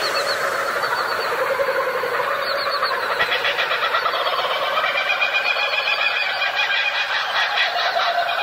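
A dense chorus of bird calls: many short chattering notes overlapping without a break.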